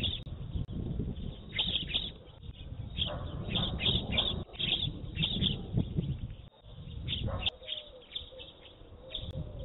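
Small birds chirping in quick, short, high calls, again and again, over a low rumble.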